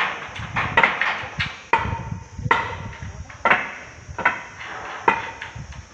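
Steel roof framework being struck again and again: irregular sharp knocks, about one or two a second, several leaving a brief metallic ring.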